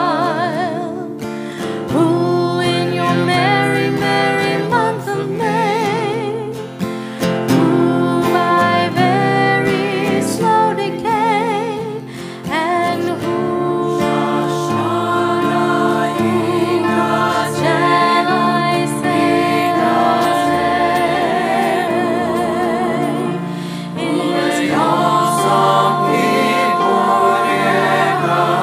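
Voices singing with vibrato over acoustic guitar and piano accompaniment, with choir voices among them.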